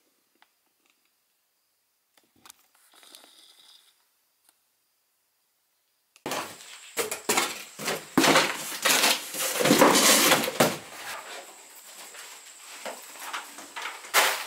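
Near silence, then about six seconds in a sudden run of loud, irregular clattering, knocking and rustling as the camera is picked up and carried by hand.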